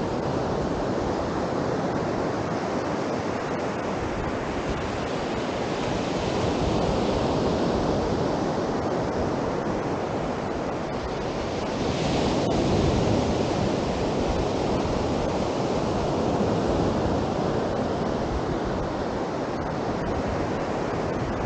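Sea surf washing on a beach, a steady rush of breaking waves that swells louder now and then, with wind on the microphone.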